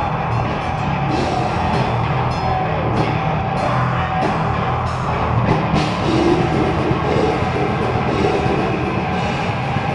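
Heavy metal band playing live: distorted guitars and a drum kit in a loud, dense mix, with cymbal crashes cutting through every half second to second.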